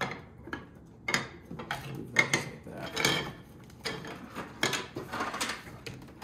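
Hard plastic toy parts clicking, clattering and knocking against a wooden tabletop as they are picked up and handled, in irregular bursts with the loudest knock about two seconds in.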